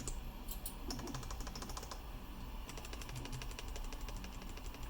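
Typing on a keyboard: quick runs of key clicks, pausing briefly about two seconds in.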